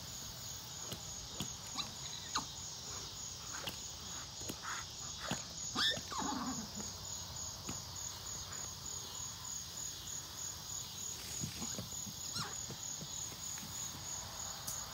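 Insects chirping outdoors in a steady, evenly pulsing high trill, with scattered soft knocks and a short animal call that slides down in pitch about six seconds in.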